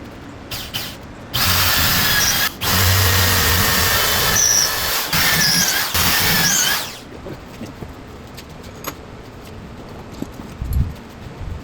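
A power drill running in three bursts lasting about five seconds in all, its whine dipping and rising in the last burst.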